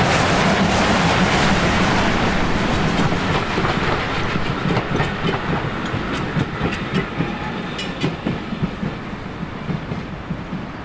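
Railway passenger coaches rolling past, their wheels clicking over the rail joints over a steady rumble. The sound fades as the last coach goes by.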